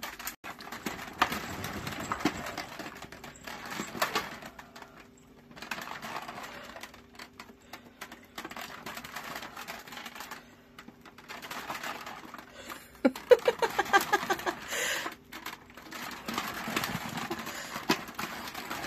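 Cat exercise wheel turning under two cats walking in it: irregular clattering and rattling of the wheel and paws on its corrugated scratch-board track. A quicker run of clicks comes about 13 seconds in.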